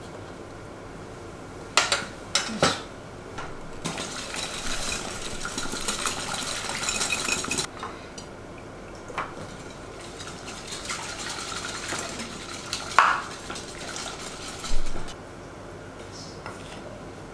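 Wire whisk beating an egg-and-oil mixture in a glass bowl: fast clattering of metal against glass, strongest in the middle and lighter later. A few sharp clinks and knocks of utensils and bottles being handled come before and after it.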